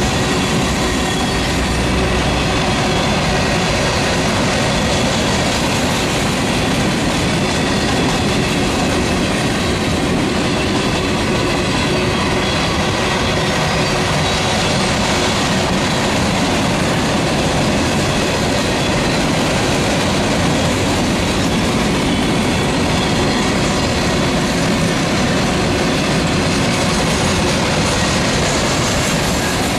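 Covered hopper cars of a long freight train rolling past: a steady, unbroken rumble of steel wheels on rail, with faint ringing tones from the wheels over it.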